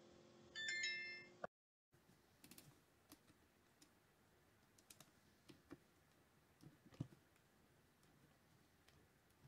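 A short electronic chime with a click in its first second and a half. Then faint scattered clicks and ticks of a screwdriver backing a small side-plate screw out of a Shimano TLD 30 fishing reel, the sharpest click about seven seconds in.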